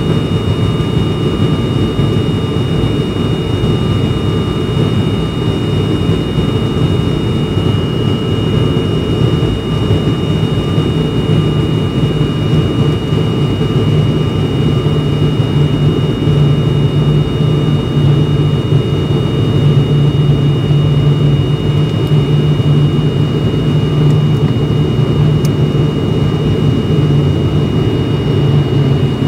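Cabin noise of an ATR twin-turboprop airliner on final approach: a steady drone from the engines and propellers, with two constant high-pitched whines above it.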